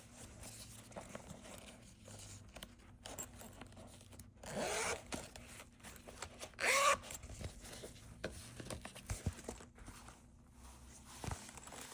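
Zipper of a fabric Hobonichi drawer pouch being pulled, two zip strokes: a longer one about four seconds in and a shorter, louder one about two seconds later, amid light handling clicks.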